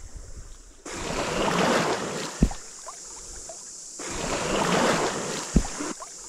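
Shallow surf washing up over wet sand: two surges of hiss, each building and fading over about three seconds, with a short low thump in each.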